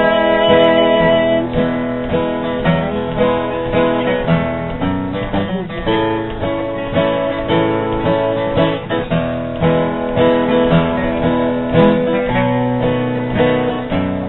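Acoustic guitar strummed in a steady rhythm, an instrumental passage of a song without singing.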